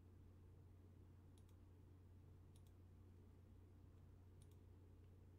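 Near silence over a low steady hum, with three faint paired clicks of a computer mouse about a second or two apart.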